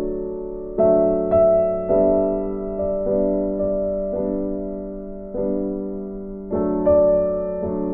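Slow, soft piano music: notes and chords struck about once a second and left to ring out.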